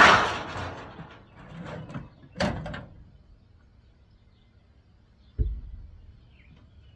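Metal parts of a microwave being dismantled for scrap clanging and knocking: a loud clang at the start with a rattling tail as a piece is tossed aside for shredding, a sharper knock about two and a half seconds in, and a dull thud near the end.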